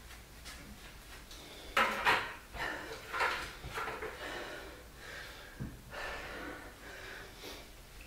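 Two sharp knocks about two seconds in, then lighter clatter and rustling of a drink bottle being handled and set down on a wooden sideboard.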